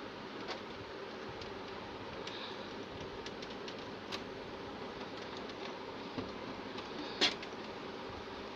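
Steady mechanical hum with scattered light clicks, and one sharper, louder click a little past seven seconds in.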